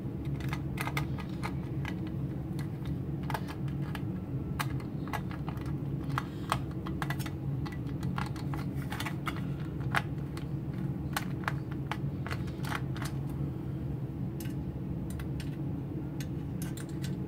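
A screwdriver driving small screws through a metal drive bracket into an SSD: irregular light metallic clicks and ticks, over a steady low hum.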